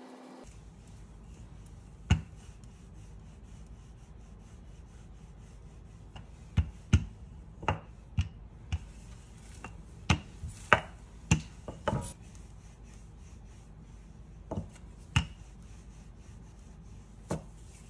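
Wooden rolling pin working a stiff, chilled block of butter dough on a granite countertop: quiet rubbing and rolling, with about a dozen sharp knocks of the pin against the stone, bunched mostly in the middle.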